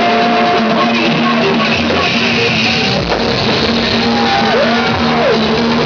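Loud music playing, with held notes and a note that bends up and down in pitch about four seconds in.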